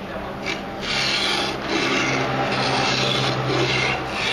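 Hedge shear blade being stroked back and forth on a whetstone, a gritty scraping in about five strokes of under a second each.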